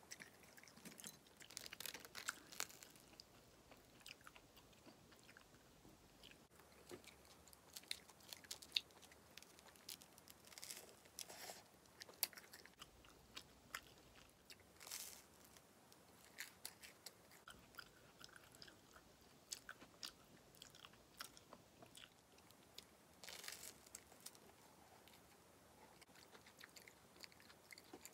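Quiet, close eating sounds: chewing and biting toast and tomato-sauce stew, with small crunches and scattered clicks.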